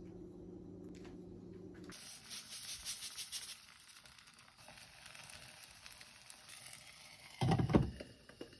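A steady low hum for the first two seconds, then food sizzling and crackling in a pan, loudest for about a second and a half before settling fainter. A loud low thump comes about seven and a half seconds in.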